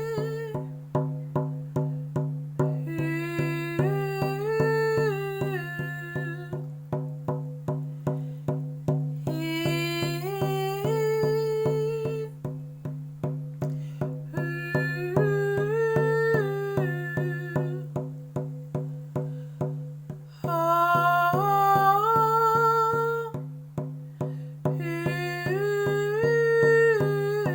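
A woman chanting wordless phrases that rise and fall in pitch, each a few seconds long with short breaks between, over a steady low drone and an even drumbeat of about two beats a second.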